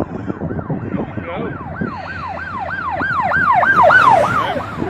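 Emergency vehicle siren in a fast yelp, about three rise-and-fall sweeps a second, growing louder to a peak about four seconds in and then fading as it passes, over a steady low rumble.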